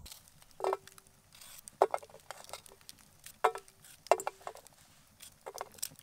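Knife cutting a red bell pepper on a stainless-steel camp plate: about eight irregular taps of the blade on the metal, several of them leaving a brief ring from the plate.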